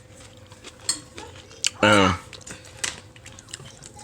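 Utensils clinking lightly against dishes during a meal, a scattering of short clicks and taps, with a brief vocal sound about two seconds in.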